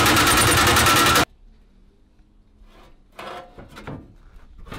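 Cordless power shear cutting a sheet-steel floor patch panel: a loud, rapid, even chatter that cuts off abruptly just over a second in. Then quieter scattered knocks and rubs of the thin steel panel being handled and laid into the floor.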